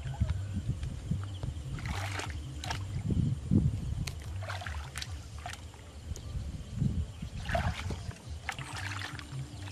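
Shallow, muddy water splashing and sloshing as hands grope through it, in short bursts every second or two over a steady low rumble.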